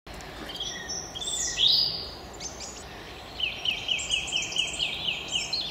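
Songbirds singing in spring woodland, several songs overlapping over a steady outdoor background hiss. One loud sweeping phrase comes about a second and a half in, and in the second half a bird repeats the same short note about nine times, roughly four a second.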